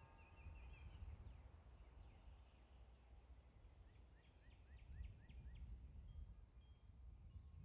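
Near silence: a faint low rumble, with a short run of about six faint high chirps about four to five seconds in.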